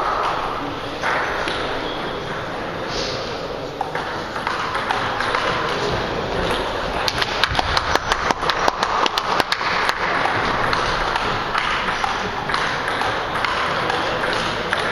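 Table tennis rally: the celluloid ball clicking quickly back and forth off the bats and the table, a fast run of sharp ticks lasting about two and a half seconds, starting about seven seconds in, against the steady background noise of a sports hall.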